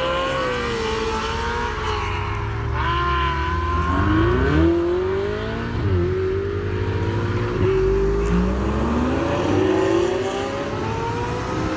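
Several Ferrari sports cars accelerating hard one after another, their engine notes climbing through the revs and dropping back sharply at each upshift, with two or more engines overlapping at times.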